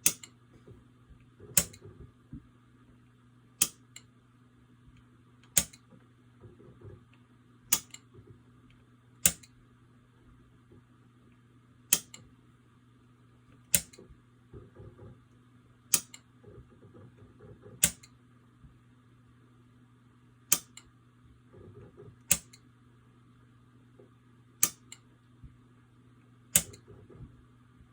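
Sharp single clicks about every two seconds, around fourteen in all, as a toggle switch wired to a Fibaro FGS-223 relay module is flicked on and off slowly in a reliability test of the module's switch input. A steady low hum runs underneath.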